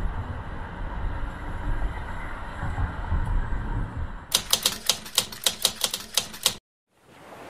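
A low, steady rumble of city traffic, then a bit past the middle a quick run of about a dozen sharp, evenly spaced clicks, like typewriter keys, at about five or six a second. The sound cuts off suddenly.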